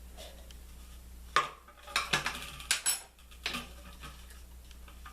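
Small kitchen utensils, a measuring spoon among them, clinking and tapping against a hard surface: about five short, sharp knocks in the middle of the few seconds, as soap is measured out.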